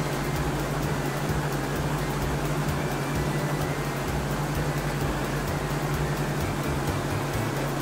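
Helicopter sound effect: steady engine and rotor noise with a low, fluttering hum.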